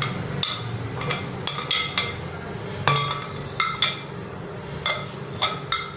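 A spoon clinking and scraping against a cut-glass dish as chopped raw mango is scraped off it into a glass bowl. There are about a dozen irregular clinks, each with a short glassy ring.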